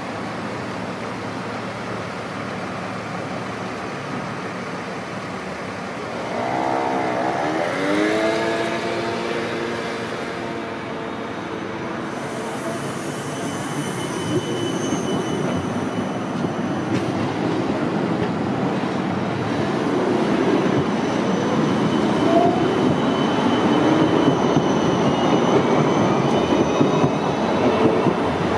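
Siemens Combino low-floor electric tram approaching and passing close by on street track, over steady road traffic. About seven seconds in, a whine falls in pitch and then holds steady. Near the end a faint high whine rises in pitch.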